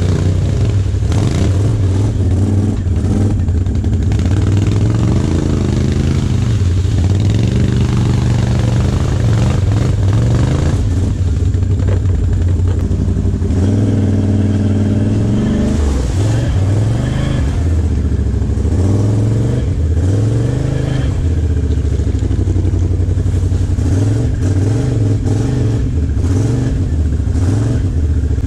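Can-Am Outlander XMR ATV engine revving up and down over and over as the quad works through deep mud, the revs climbing and dropping every second or two.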